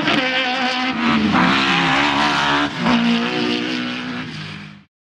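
Autocross buggy's engine revving hard as it races by, its pitch dipping twice. It fades toward the end and cuts off suddenly.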